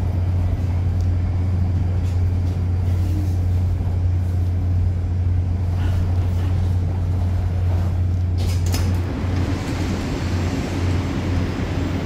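Moscow Metro train heard from inside the car as it pulls into a station: a steady low hum and running noise. About eight and a half seconds in there is a short hiss, then the hum breaks up and turns uneven as the train comes to a stop.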